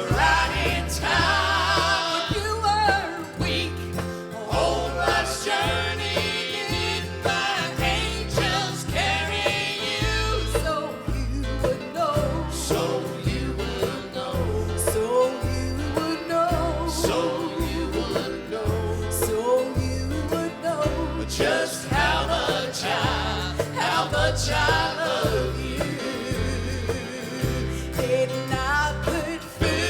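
Gospel music: singing over a steady, pulsing bass line.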